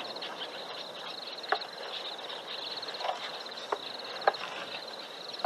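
Outdoor wildlife ambience: a high, rapid chirring trill repeating in short runs, with a few sharp knocks about a second and a half in and twice near the end.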